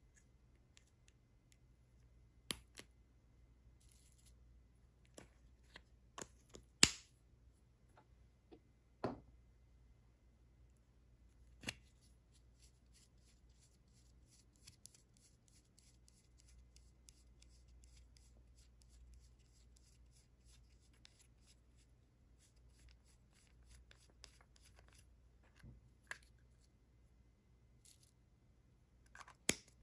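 Small plastic clicks and taps from lipstick and lip-balm tubes being handled and twisted, with one sharp click about seven seconds in and a stretch of faint rapid ticking in the middle.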